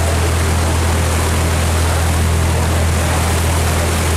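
Boat engine droning steadily under a constant rush of water and wind.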